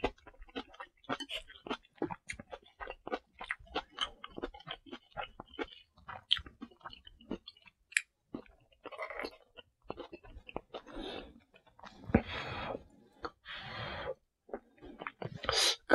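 Close-miked chewing with wet mouth clicks and smacks. Then, from about nine seconds in, several long slurps of instant ramen noodles.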